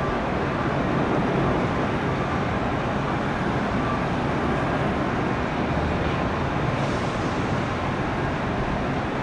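Jet airliner engines running, a steady, even noise with no change in the few seconds.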